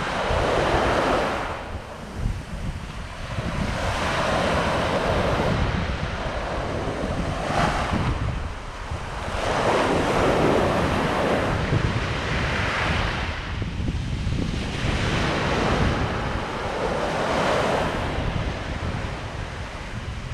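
Small waves washing onto a sandy beach in repeated swells every two to three seconds, with wind buffeting the microphone as a steady low rumble.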